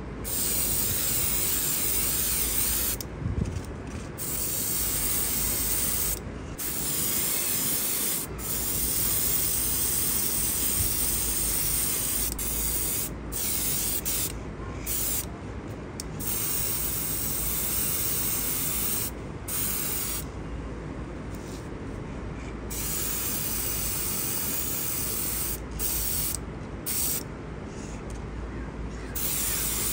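Aerosol spray paint can spraying: loud hiss in long bursts broken by a dozen or so brief pauses as the nozzle is pressed and released.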